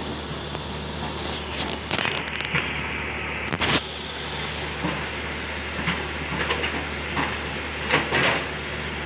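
Excavator's diesel engine running with a steady low hum, with irregular metallic clanks and knocks, the loudest about two, three and a half, and eight seconds in.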